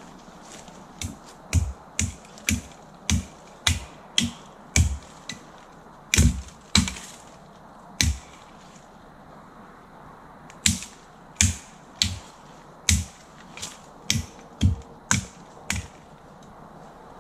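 Hatchet chopping into a sapling: sharp chops with a dull thud under each, about two a second, in two runs with a pause of a couple of seconds between them.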